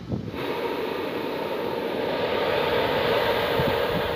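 Exhaust fan running: a steady rushing drone of air and motor that starts abruptly about half a second in.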